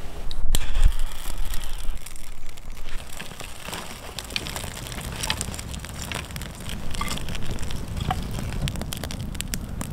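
Small campfire of dry twigs and kindling crackling and popping as it is lit and fed with sticks, with many scattered sharp snaps. A brief low rumble comes first, in the opening second or two.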